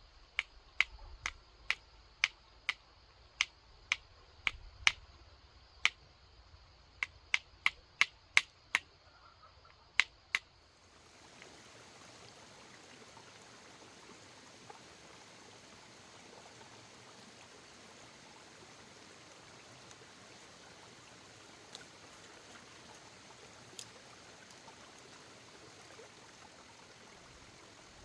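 A run of about sixteen sharp, irregularly spaced knocks or taps over the first ten seconds. After that, a steady, even hiss with an occasional faint tick.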